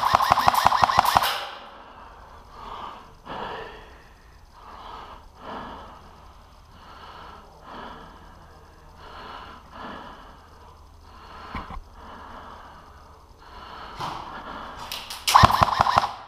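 Airsoft gun firing a rapid full-auto burst that stops about a second in, then a long stretch of breathing at about one breath a second, and a second full-auto burst near the end.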